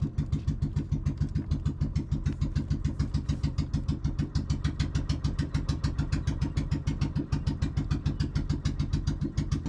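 Outrigger fishing boat's engine running steadily under way, a fast, even putter of firing pulses.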